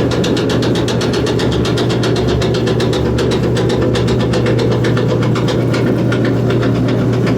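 Screw-drive wheelchair lift travelling, its electric motor running with a steady hum and a rapid, even rattling tick several times a second from the cheaply built, loose-fitting platform and drive.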